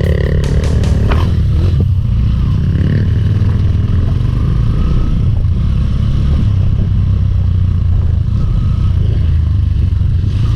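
Trail motorcycle engine running steadily as the bike rides over rough ground, with a few sharp clicks and clatter in the first two seconds.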